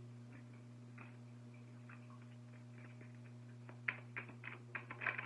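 Oracle cards being handled: a run of light clicks and taps, bunched in the second half, over a steady low electrical hum.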